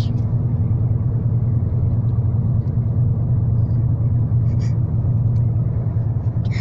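Steady low road rumble heard inside a moving car's cabin.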